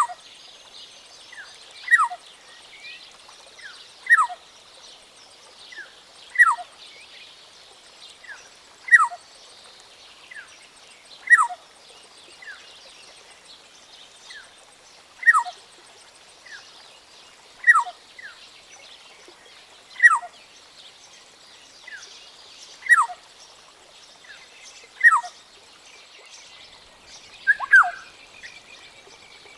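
Black-tailed oriole calling: a short downward-sliding note repeated about every two to two and a half seconds, over a steady high-pitched background hiss.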